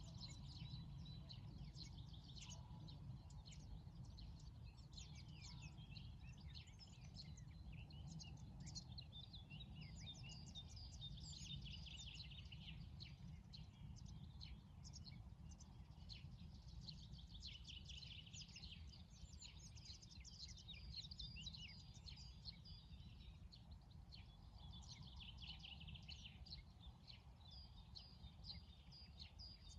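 Faint chorus of many small birds chirping and twittering, their calls overlapping without a break, over a low steady rumble.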